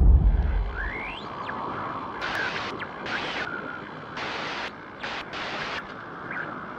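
Sound effects of a GoPro logo intro animation: a deep boom dying away, then a steady hissing crackle with four or five short bursts of brighter hiss and a rising whoosh about a second in.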